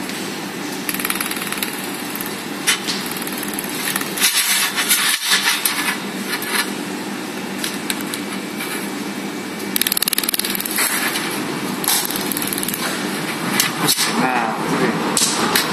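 Steady mechanical running noise of a workshop machine, with scattered sharp clicks and rattles as thin metal strip pieces are handled and set down on a steel worktable.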